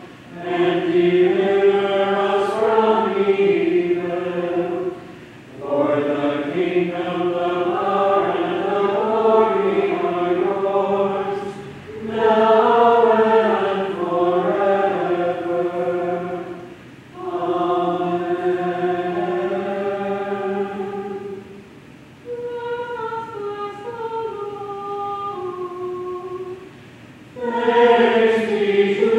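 Church choir singing in phrases of a few seconds each, with short breaks for breath between them.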